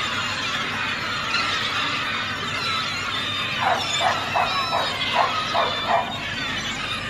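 Gulls calling: a run of about eight short, harsh barking notes, three to four a second, starting about three and a half seconds in, over a steady hiss of background noise.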